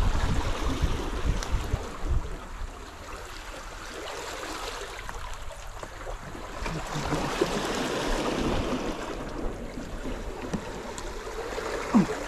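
Seawater lapping and washing against rock boulders at the water's edge, a steady wash of water noise. Heavier low rumbling on the microphone in the first two seconds.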